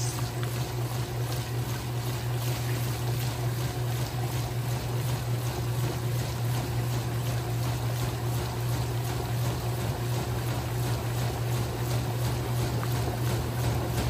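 Electrolux Top8 (LE08) top-loading washing machine in its self-clean stage, spinning the tub with water in it. There is a steady motor hum with water swishing.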